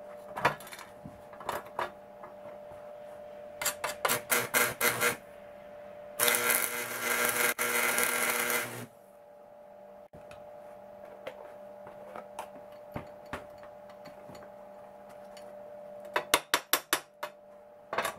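Household 100 V AC stick welder: under a steady transformer hum, the flux-coated electrode is tapped on the steel plate in a quick run of sharp clicks to strike the arc at low voltage, then the arc catches and crackles loudly for about two and a half seconds before cutting off. Another quick run of taps comes near the end.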